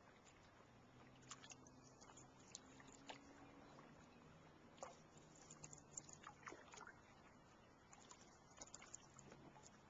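Near silence on open water: faint, irregular small ticks and splashes of water lapping against a canoe hull, over a faint low hum.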